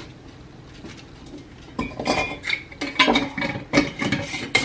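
Kitchenware clinking and clattering, a quick run of sharp knocks and rings, starting about two seconds in.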